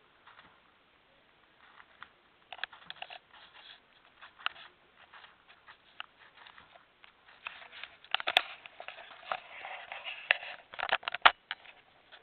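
Syrian hamster eating a piece of apple: irregular small crunching, clicking and scraping sounds of gnawing and chewing. The sounds are sparse at first and busier in the second half, with two sharper clicks, one a little past the middle and one near the end.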